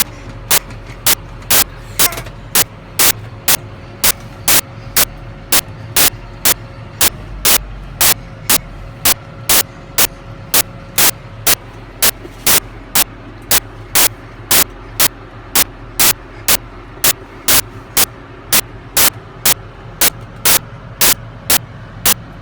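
Farm machine engine running in a steady low drone, with loud sharp clicks at a very even pace of about two a second throughout.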